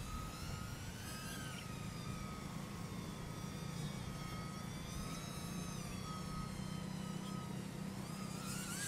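Mobula 8 micro FPV drone's brushless motors and propellers whining in flight, the pitch rising and falling as the throttle changes, over a steady low hum.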